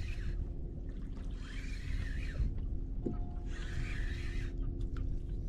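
Fishing reel being wound in three bursts of about a second each, a whirring with a wavering tone, as mackerel are reeled up to the kayak. Wind rumbles on the microphone underneath.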